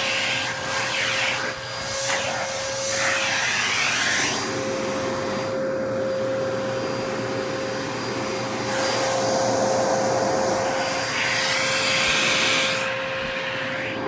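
Dyson DC33 vacuum cleaner running on carpet: a steady motor whine under a rushing air hiss that swells and fades several times as the nozzle moves over the pile. The whine drops out briefly about four seconds in.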